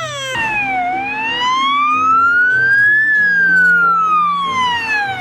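Siren wailing: the pitch dips briefly, climbs slowly for about two seconds, then falls slowly again.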